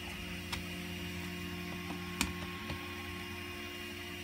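A few light clicks and knocks as the 3D-printed plastic parts of a robot neck gearbox are handled and fitted back together, over a steady low hum; the sharpest knock comes right at the end.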